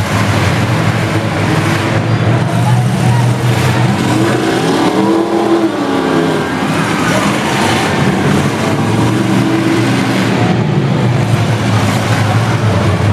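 Engines of several demolition derby cars running and revving together, with one engine climbing and falling in pitch about four to six seconds in.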